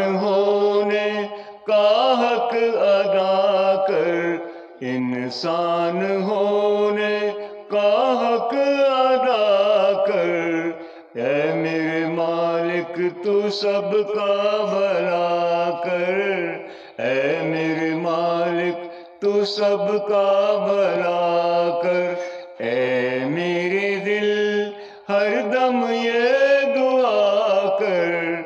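A man singing solo into a handheld karaoke microphone: long, wavering held notes in phrases of a few seconds each, with short breaths between them.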